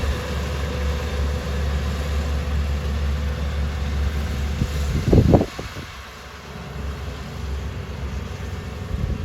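A machine engine running with a steady low hum. About five seconds in there is a loud brief disturbance, then the sound drops to a quieter, windier background.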